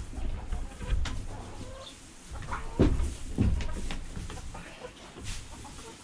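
Chickens clucking, with scattered knocks and two low thumps about three seconds in as cattle jostle at a metal feeder gate.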